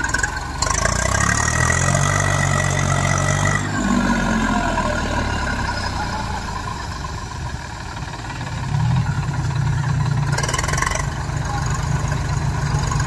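Eicher tractor's diesel engine working hard while stuck in deep mud, revving up, easing off about four seconds in, and revving up again near nine seconds.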